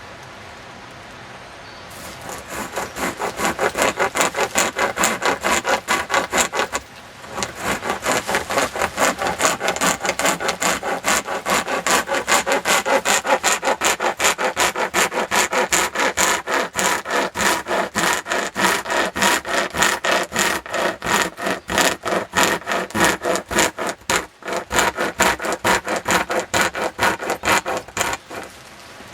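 Homemade pocket chainsaw, a bare chainsaw chain pulled back and forth by hand, cutting into a tree trunk: the chain's cutters rasp through the wood in rapid, rhythmic strokes. The sawing starts about two seconds in and stops briefly about seven seconds in before going on.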